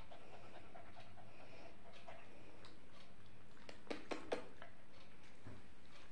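A puppy panting quietly, with a few short clicks about four seconds in.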